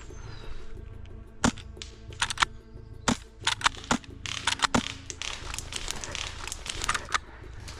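A run of irregular sharp snaps and crackles, bunched in clusters, over steady background music.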